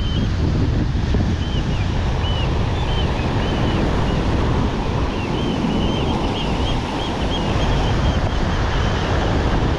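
Wind buffeting the microphone over surf breaking on the beach, a steady loud rush. Faint short high chirps come and go through it.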